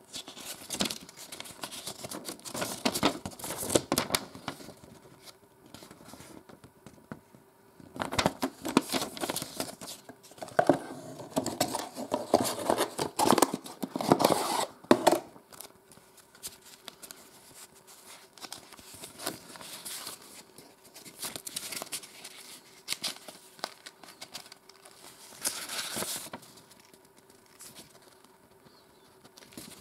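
Paper leaflets and a cardboard box with its insert being handled, in irregular bursts of rustling, crinkling and small clicks. The busiest, loudest handling comes in the middle, as the box insert is worked open.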